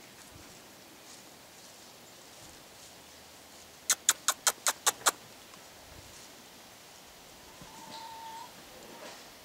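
A quick run of seven sharp, loud clicks, about six a second, lasting just over a second. Near the end comes a short, steady, high call from a chicken.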